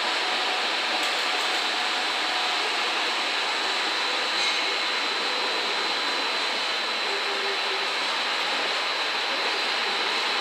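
Loaded container freight wagons rolling past on the rails: a steady, even noise of wheels on track, with a faint steady high tone over it.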